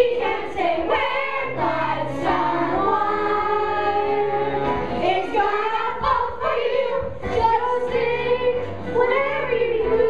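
Children's chorus singing a musical-theatre number with instrumental accompaniment, a held bass line changing note every second or so under the voices.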